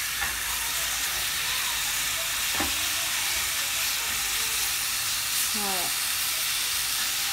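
Yogurt-marinated chicken breast pieces sizzling as they sear in a hot pan, a steady hiss, stirred with a wooden spatula that knocks once against the pan about two and a half seconds in.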